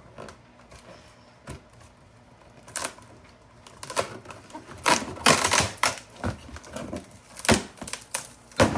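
Irregular clicks, knocks and rustles of boxes and packaging being handled, sparse at first and busiest about halfway through, with a few sharper knocks near the end.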